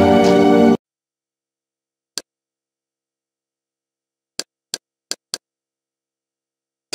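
Music stops abruptly under a second in, followed by dead digital silence broken by short Kodi interface click sounds as the menus are navigated. There is one click about two seconds in, four in quick succession around five seconds in, and a louder one at the very end.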